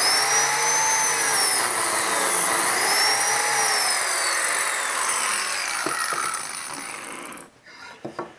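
Electric biscuit (plate) joiner running as it cuts a slot for a number 20 biscuit in the edge of a hardwood board; its high whine sags in pitch and recovers twice. The motor then winds down and fades out after about five seconds, followed by a couple of light knocks.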